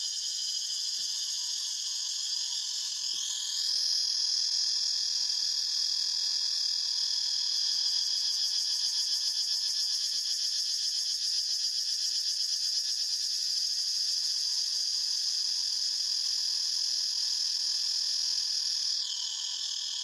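Cicadas calling in a steady, high-pitched chorus. About three seconds in, one louder cicada joins, its call rising in pitch, holds it, and drops away in pitch near the end.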